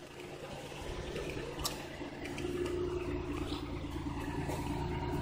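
2003 Oldsmobile Silhouette's 3.4-litre V6 idling with a steady hum, gradually growing louder.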